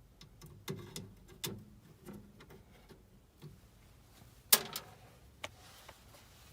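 Scattered light clicks and knocks of small metal parts and hand tools being handled, with one sharper metallic clank that rings briefly about four and a half seconds in.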